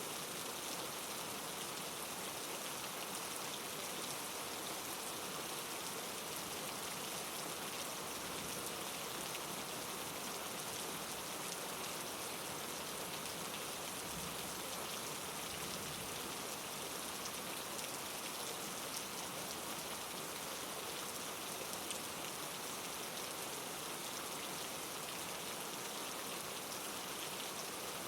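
Steady rain falling, an even hiss of drops without thunder.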